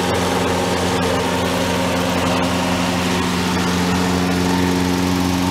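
Two walk-behind lawn mower engines running steadily together: a Toro Personal Pace's 6.75 HP Briggs & Stratton engine and a Snapper P216012's 7 HP Briggs & Stratton overhead-valve engine, the Snapper freshly started on its first pull.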